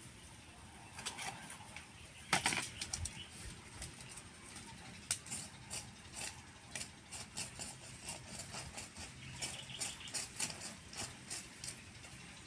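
Irregular light clicks and clacks of cooking at a charcoal grill: shellfish shells knocking in a steel bowl and a stick tapping and scraping a wire grill grate, with one louder clack about two seconds in.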